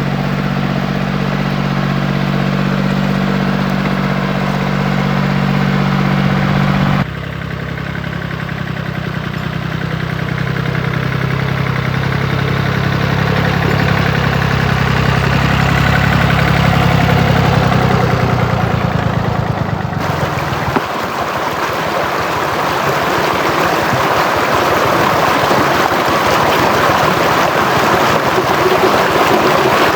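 An engine running steadily, cutting abruptly about seven seconds in to a different low mechanical drone that rises slightly in pitch, which then gives way abruptly, about two-thirds of the way through, to a steady rushing hiss.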